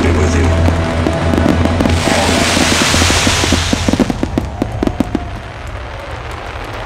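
Fireworks finale: a loud rushing hiss of fountain fireworks about two seconds in, then a rapid string of crackling pops and bangs from bursting shells, over the show's music, which stops about four seconds in. The sound drops off after about five seconds.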